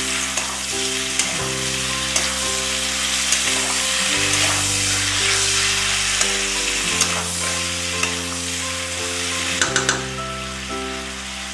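Pork pieces, potatoes and just-added tomatoes sizzling in hot oil in a kadai, stirred and scraped with a metal spatula, with a few clicks of the spatula on the pan.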